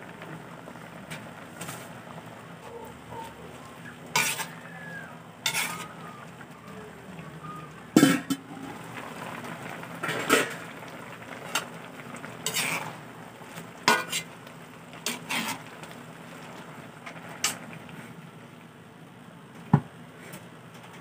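Vegetable broth with squash, string beans and malunggay leaves simmering in an aluminium wok, a steady low bubbling hiss. About ten sharp, irregularly spaced knocks of a utensil against the metal pan sound over it, the loudest about eight seconds in and near the end.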